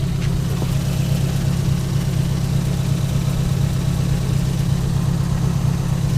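Ford Focus race car's engine idling steadily as it warms up to temperature.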